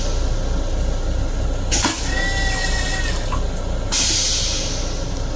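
M7 commuter railcar toilet flushing: a click about two seconds in, then a short steady whine for about a second, then a loud hiss of rinse water washing the stainless-steel bowl near the end. The train's steady low rumble runs underneath.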